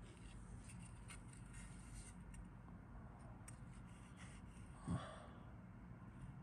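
Faint light clicks and rustles of a plastic model-kit wing part being handled, with one short, louder puff about five seconds in.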